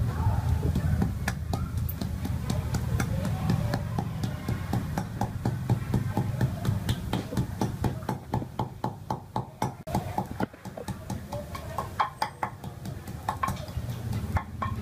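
Wooden pestle pounding in a mortar: a run of dull knocks, about four a second at its steadiest, easing off briefly about ten seconds in.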